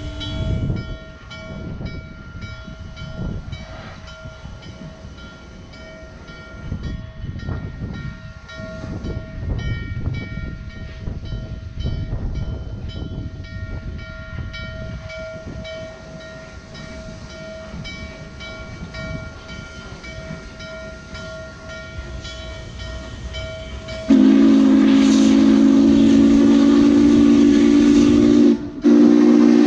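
Norfolk & Western 611, a 4-8-4 steam locomotive, approaching with a low, uneven rumble. Late on its steam whistle blows: a loud, long chord of several tones that breaks off briefly near the end and starts again.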